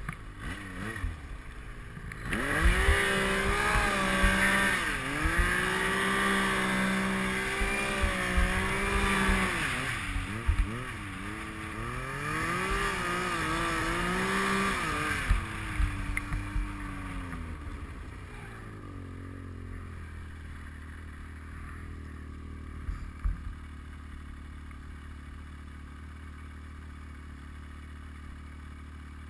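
Yamaha Nytro snowmobile's four-stroke three-cylinder engine revving hard under load in deep powder, its pitch rising and falling with the throttle. After about eighteen seconds it drops back to a low, steady hum.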